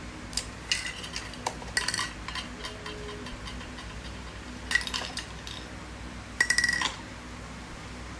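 Hard objects clinking and clattering against each other in four short bursts, each with brief ringing tones; the last burst, about six and a half seconds in, is the loudest.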